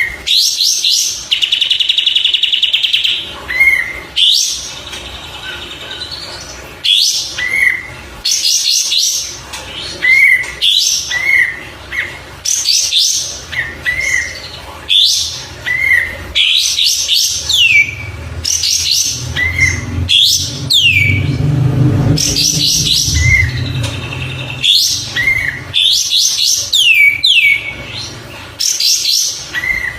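Kapas tembak bulbul singing: short phrases of quick chattering notes, each followed by a short rising whistle, repeated every second or two, with a few falling whistled sweeps. A low rumble runs underneath for a few seconds in the middle.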